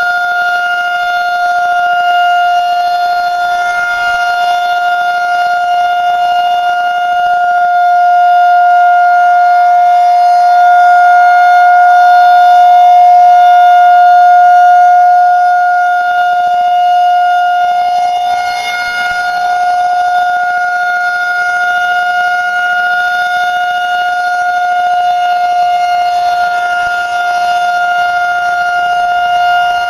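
Federal Signal 2001-130 outdoor warning siren sounding a steady single-tone test signal. The wail swells louder through the middle and then eases off again as the rotating siren head turns.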